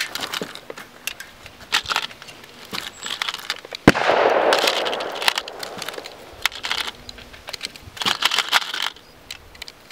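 9mm cartridges clicking as they are pressed one by one into translucent ETS Glock magazines, with loose brass cartridges rattling as they are picked from a pouch. About four seconds in comes one sharp, loud crack with a rushing tail that fades over a couple of seconds.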